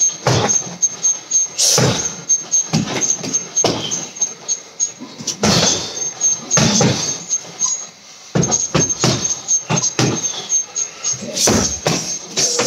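Gloved punches landing on a heavy bag in quick combinations: a string of sharp thuds, several a second, with a short pause about eight seconds in.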